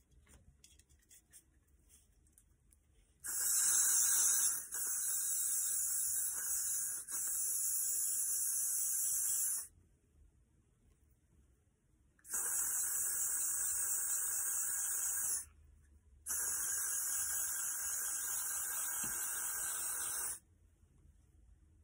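Aerosol spray can hissing in three long bursts, about six, three and four seconds, each starting and stopping sharply. The spray is applied to the lace of a wig to seal the knots before dip dyeing.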